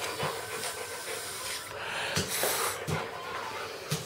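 A dog panting, with a few short soft thumps.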